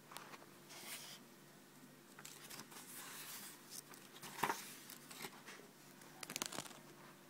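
Paper pages of a thick book being turned and flicked by hand: quiet, irregular rustling and crinkling, with a sharp page snap about four and a half seconds in and a quick run of crackles near the end.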